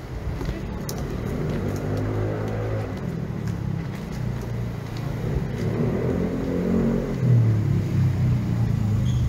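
Car engines passing close by in street traffic, one swelling about two seconds in and a second, louder one from about six seconds in.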